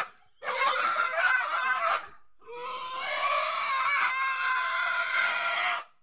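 Domestic pig squealing in distress while held down with its legs tied for slaughter: two long, high-pitched squeals, the second longer.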